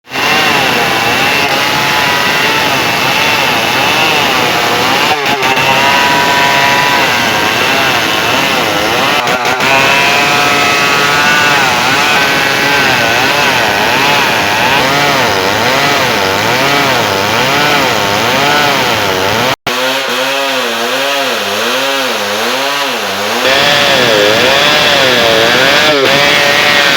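Two-stroke chainsaw running at high revs, its pitch wavering up and down over and over. The sound cuts out sharply for an instant about two-thirds of the way through.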